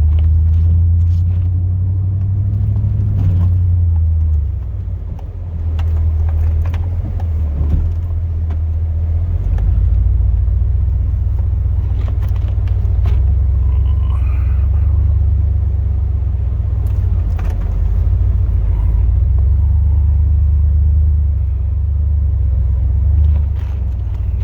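The 2002 Chevrolet Silverado's 8.1-litre big-block V8 gas engine runs with a steady low rumble that dips briefly about five seconds in. Scattered light knocks can be heard over it.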